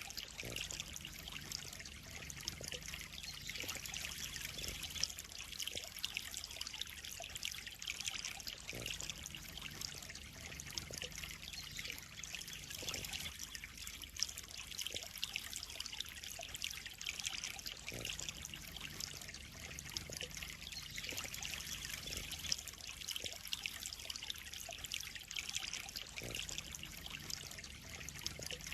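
Water trickling steadily into a koi pond, with a few brief sharper splashes.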